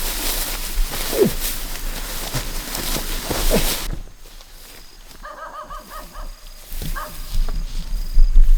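Rustling through dry rice stalks for about four seconds, with a few short falling yelps from an animal. Then it goes quieter, with a brief wavering call and a few knocks near the end.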